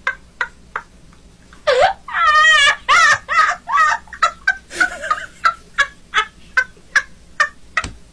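A man laughing hard in a high, wheezy voice: a run of short laugh pulses, about three a second, broken about two seconds in by a long warbling squeal.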